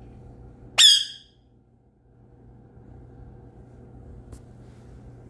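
A single struck note on a bar of a toy xylophone about a second in, ringing briefly and dying away, and later one faint click.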